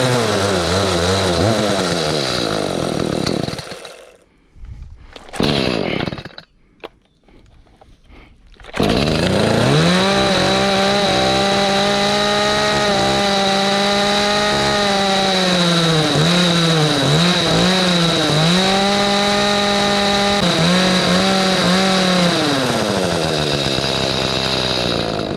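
Echo CS310 chainsaw's two-stroke engine, test-run on a newly fitted carburetor. It runs, dies about four seconds in, sputters briefly, then restarts about nine seconds in and runs high and steady, with a few short dips in speed, slowing near the end. The owner takes this uneven running as a sign that the carburetor needs tuning.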